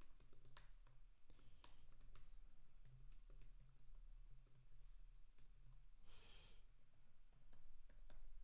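Faint typing on a computer keyboard: scattered key clicks, with a short breath into the microphone about six seconds in.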